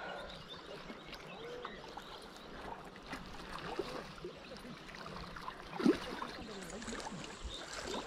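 A hooked fish splashing and thrashing in shallow water at the river's edge over the steady rush of the flowing river, with one louder thump about six seconds in.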